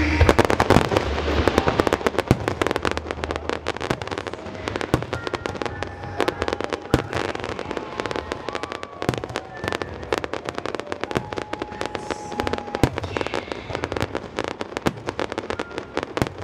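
Aerial fireworks going off in a dense, rapid crackle of many small bursts and bangs, heaviest in the first couple of seconds and thinning a little after.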